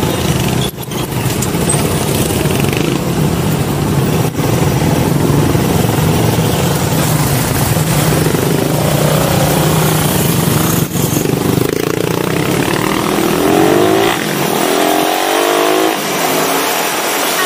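Suzuki motorcycle engine running under way with road and wind noise, and other traffic around it. Near the end the engine note rises in several short sweeps as the revs climb.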